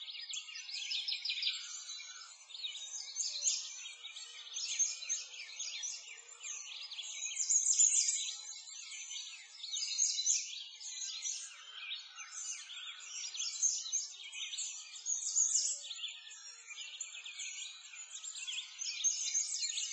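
A dense chorus of many birds chirping and singing at once: a continuous tangle of short, high chirps and trills, with no low sounds underneath.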